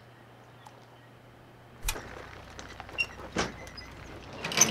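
Faint steady hiss, then from about two seconds in a sharp knock and a few scattered clunks of gear being handled at a raft on its trailer. Near the end it turns into busy clicking and clattering.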